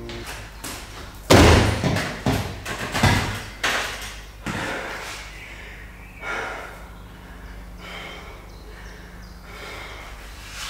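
A loud heavy thud about a second in, followed by a quick run of smaller thumps and knocks that die away within a few seconds.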